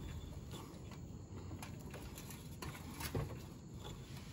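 Faint handling noise with a few light clicks and knocks as a toothed drive pulley is worked by hand off its shaft on a reel mower.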